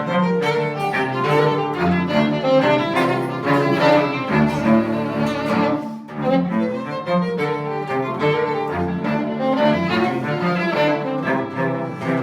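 Music played on bowed string instruments, low strings prominent, with notes changing quickly and a brief dip about six seconds in.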